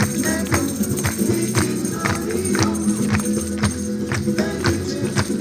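Music with a steady beat of jingling, tambourine-like percussion, about two strokes a second, over sustained pitched tones.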